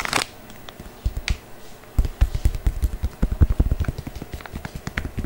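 Fingers tapping and knocking on a small pack of pink modelling foam held close to the microphone. It starts with a single knock, then from about two seconds in comes a quick run of dull taps with light clicks on top.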